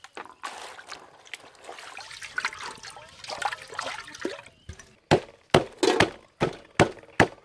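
Water trickling and splashing as food is handled in water. About five seconds in, it gives way to steady chopping on a cutting board, about three strokes a second.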